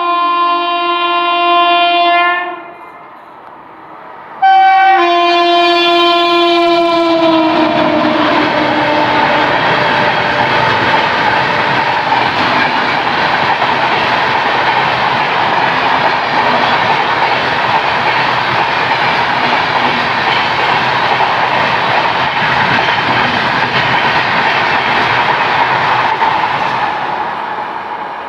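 Indian Railways express train running through a station at speed without stopping, with its electric locomotive sounding two long horn blasts. The pitch of the second blast drops as the locomotive passes. Then comes the steady rush and clatter of the coaches going by, fading near the end as the train moves away.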